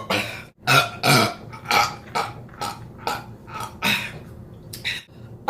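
A person burping over and over: about ten short burps in quick succession, roughly two a second.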